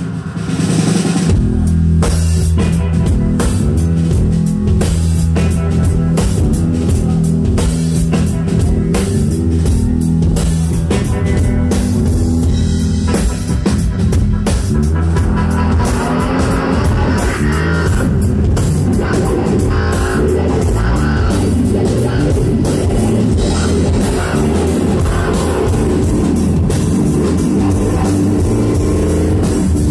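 Live rock music: a drum kit playing a steady beat under a loud electric guitar fed through a pedalboard of effects.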